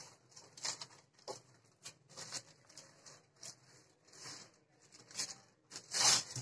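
Aluminium foil crinkling in short, irregular rustles as it is unwrapped and pulled off a chilled coconut roll, with the loudest crackle near the end as the sheet is lifted away.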